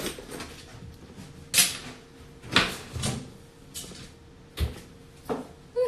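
A series of short, irregular knocks and rustles, about seven in six seconds, like things being handled and set down close to a phone's microphone, over a faint steady hum.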